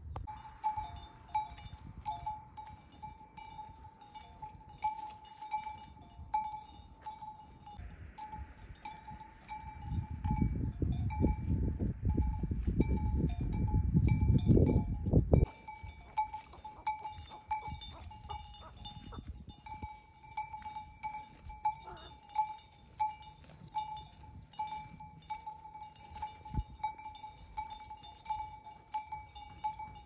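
Livestock bells clinking over and over with a ringing tone. About ten seconds in, a low rumbling noise comes in for about five seconds, then cuts off suddenly.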